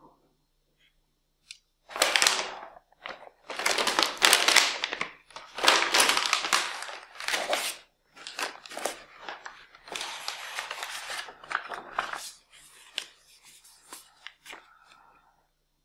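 Packaging being handled: a foam insert and cardboard box shifted and scraped, then a paper CD sleeve and printed leaflet rustling. It comes as a run of loud scraping and crinkling bursts that thin out to faint rustles and clicks over the last few seconds.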